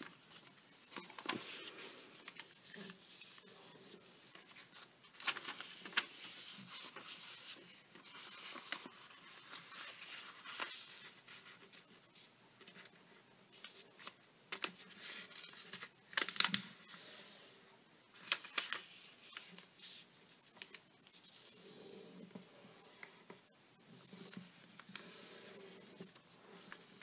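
Origami paper being folded and creased by hand: scattered faint rustles and crinkles, with a few sharper crackles as the sheet is flipped and pressed flat.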